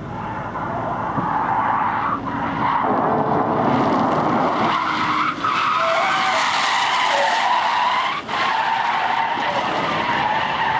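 Car tyres squealing continuously as a car drifts sideways, building up over the first couple of seconds. The squeal wavers in pitch and drops out briefly two or three times.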